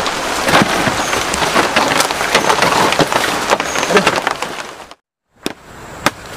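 Rain pattering steadily, with many small clicks and knocks mixed in. About five seconds in it cuts off abruptly, followed by a few sharp, separate machete strikes into a bamboo pole.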